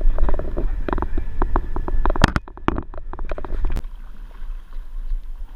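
A rapid run of sharp clicks and knocks over a low rumble. From about four seconds in it gives way to a quieter steady wind rumble on the microphone out on the water among paddled kayaks.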